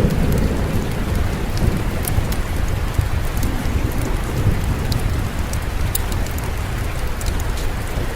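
Steady rainfall with a low rumble of distant thunder that fades in the first second, over scattered sharp fireplace crackles.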